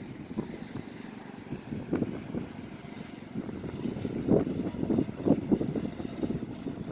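Strong, gusty desert wind buffeting the microphone: an uneven low rumble that swells and fades with each gust, heavier gusts coming about four seconds in.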